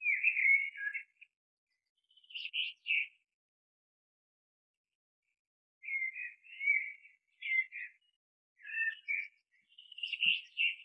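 Small birds chirping and twittering in short bouts, high-pitched, with a silent gap of about three seconds in the middle.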